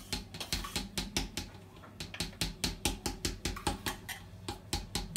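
Quick rhythmic tapping and clicking, about three or four strokes a second with a brief pause partway through, as a small hand sieve of cocoa powder is shaken and tapped over a dish to sift it.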